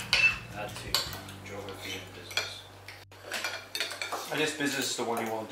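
Metal forks and spoons clinking and scraping on ceramic dinner plates as several people eat, with brief low conversation at the table.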